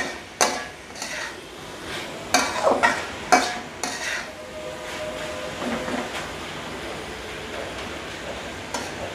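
Capsicum and mixed vegetables being stir-fried in a metal wok: a spatula scrapes and clacks against the pan, busiest in the first four seconds, over a steady sizzle of frying.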